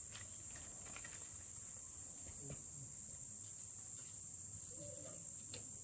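Insects chirring in a continuous high-pitched drone, with a few faint taps.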